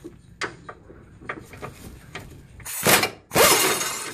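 Impact wrench hammering in two short loud bursts near the end, taking a 15 mm brace bolt out of the K-member, after a few light clicks of the tool and socket being handled.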